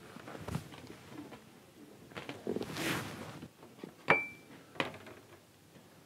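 Small clinks and knocks of objects handled on a tabletop, with one sharp clink that rings briefly about four seconds in.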